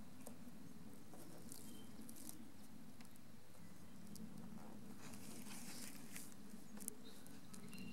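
Faint crinkling and rustling of clear monofilm sail film, handled and pressed flat by hand, in short scattered crackles that thicken a little past the middle, over a low steady background hum.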